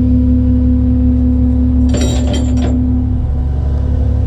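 Tow truck's engine running with a steady whine over it that stops about three seconds in, while the van is being loaded; a few metallic clinks sound about two seconds in.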